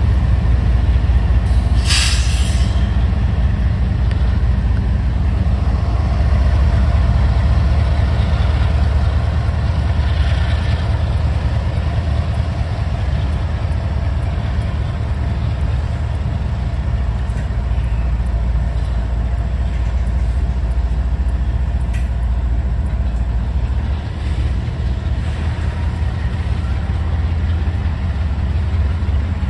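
Freight train rolling past close by: a steady low rumble of wheels and diesel locomotive power, with a short hiss about two seconds in.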